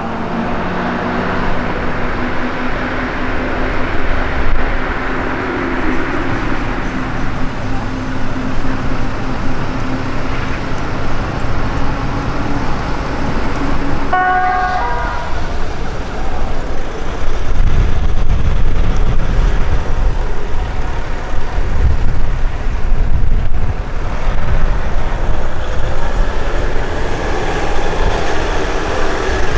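Road vehicles running and passing, with a short horn toot about halfway through, then a louder low rumble in the second half.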